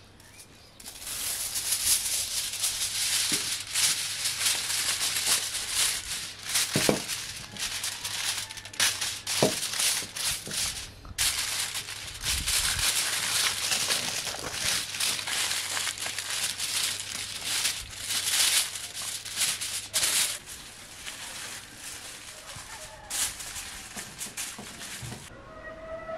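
Sheet of aluminium foil crinkling and crackling as hands wrap and crimp it over a baking tray, a dense rustle that pauses briefly near the middle and stops shortly before the end.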